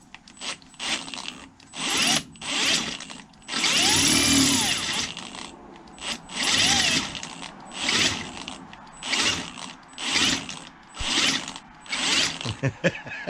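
Handheld electric drill boring into the intake manifold's exhaust passage hole, run in short trigger bursts about once a second, its pitch rising and falling with each burst.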